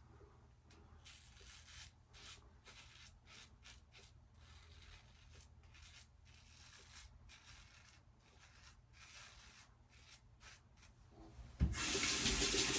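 Open-comb injector safety razor scraping through lathered stubble of several days' growth in short, faint, irregular strokes. Near the end a tap starts running as the razor is rinsed.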